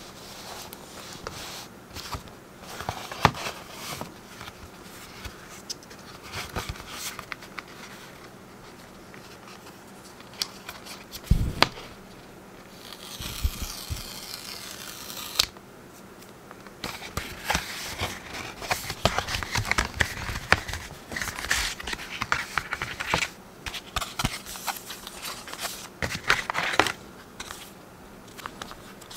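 Hands handling an Apple Watch sport band's cardboard and paper packaging: scattered taps and rustles, a low thud a little before the middle, then the box's paper pull-tab torn off in a rip lasting about two seconds. Dense crinkling and rustling of paper follows as the band is slid out of its paper sleeve.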